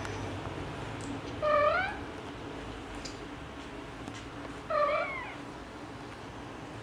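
A domestic cat giving two short meows, each rising in pitch at the end, about three seconds apart, over a steady low hum.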